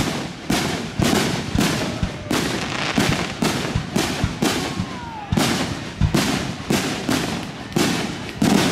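Aerial firework shells bursting in quick succession, about two bangs a second, each sharp report trailing off before the next.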